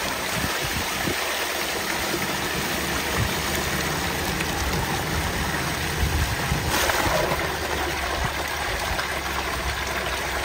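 Tubewell water gushing steadily from an outlet pipe into a concrete tank, splashing as it falls onto a bather's head and into the pool.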